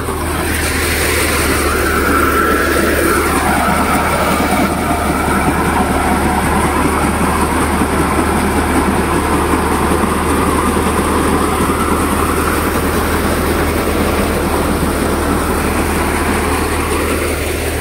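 Gill paddy thresher running under load, driven by a Massey Ferguson 241 DI tractor's diesel engine, threshing rice: a loud, steady mechanical din over a low engine hum.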